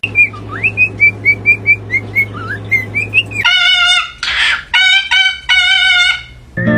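Parrot chirping in short repeated chirps, about three a second, with a couple of rising whistles, over a steady low hum. It then switches to three long, loud calls with a harsh screech among them.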